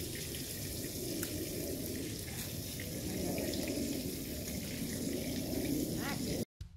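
Steady rushing outdoor ambient noise, cut off abruptly near the end.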